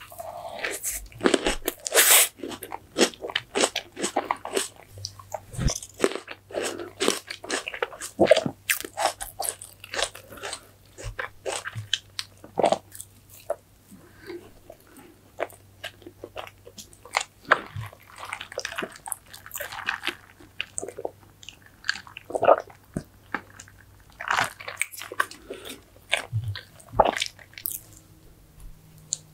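Close-miked eating: a person biting and chewing food, with many sharp crackles and clicks from the mouth.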